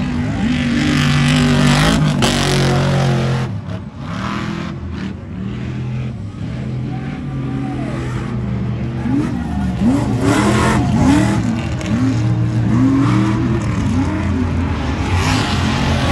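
Off-road race trucks running a dirt course, their engines revving up and down again and again through the corners. The trucks are louder as they pass close, near the start and again near the end.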